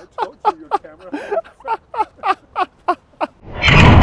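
A rapid, even run of short sounds, about four a second, each falling in pitch. Then, about three and a half seconds in, a four-tonne steel ball dropped 14 metres from its tower hits the ground with a sudden, loud crash that rings on.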